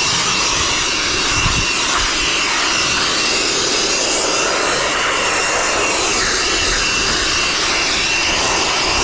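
Handheld electric blower running steadily, blowing drill dust off the roofing sheet: a loud rush of air with a thin, steady high motor whine on top.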